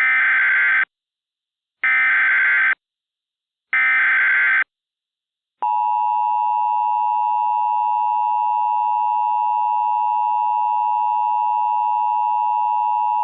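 Emergency Alert System header: three short bursts of SAME digital data, each just under a second and about a second apart, then the steady two-tone EAS attention signal, starting about five and a half seconds in and held on.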